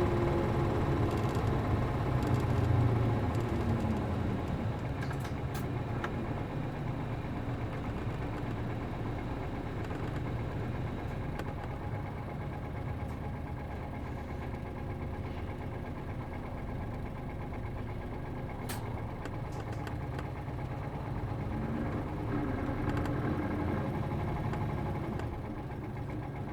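Route bus's MD92TJ diesel engine winding down over the first few seconds, then running steadily at low revs, with a couple of sharp clicks. The revs pick up briefly a few seconds before the end.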